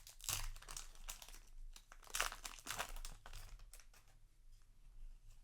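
Foil Yu-Gi-Oh! booster pack wrapper crinkling and tearing as it is ripped open by hand, loudest about two seconds in, then dying down to light rustling of the cards being handled.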